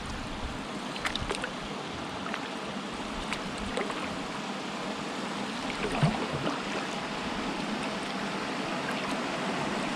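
Small spring-fed waterfall spilling from a limestone wall into a river: a steady splashing trickle with scattered drips, slowly getting louder.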